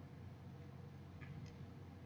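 Quiet eating sounds: two faint small clicks a little after a second in, over a low steady room hum.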